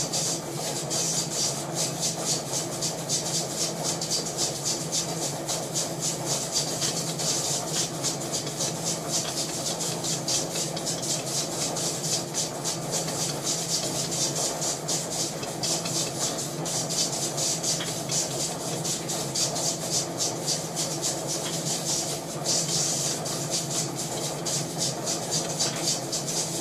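Jewelry laser welding machine firing rapid repeated pulses, a steady stream of sharp ticks, over the machine's steady hum, as pits from porosity in a gold ring are filled.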